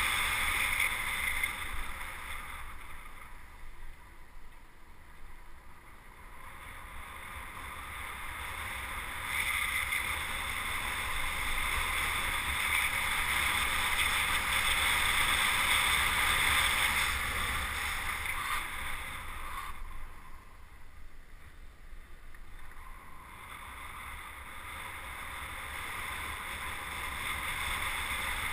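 Wind rushing over the microphone and tyre or wheel noise on asphalt during a fast downhill run, with no engine. It swells and fades with speed: quieter a few seconds in and again about two-thirds through, loudest in the middle.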